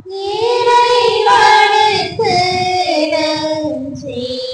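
Congregation of women's and children's voices singing a short Tamil response in unison at the dismissal closing the Mass, the melody stepping down in held notes over about four seconds.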